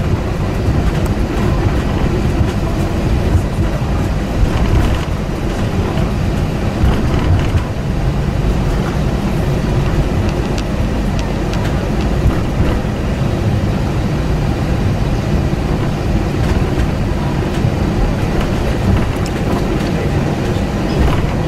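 Steady, loud cabin noise inside an Airbus A320-232 airliner: the rumble of its IAE V2500 engines and airflow, heaviest in the low end, with a few faint clicks.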